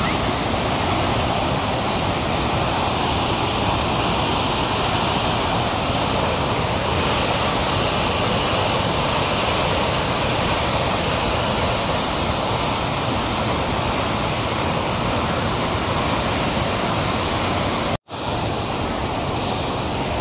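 Floodwater pouring through the opened shutters of a masonry dam into the spillway below: a loud, steady rush of churning water. It drops out for an instant near the end.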